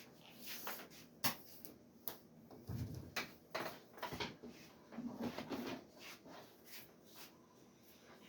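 Handling noises: irregular sharp clicks and taps with a few duller thumps, as a tool and its parts are picked up and set down.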